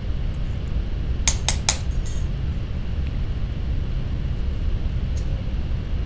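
Three quick, light metallic taps about a second and a half in, then a couple of fainter ticks, over a steady low hum: a hammer tapping a dapping punch to flare out a copper tube rivet.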